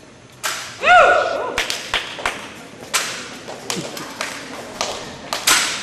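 Springfield 1903-A3 drill rifle slapping into the performer's hands as it is caught, spun and handled, a string of sharp smacks, the loudest about a second in. A voice lets out a short whoop about a second in.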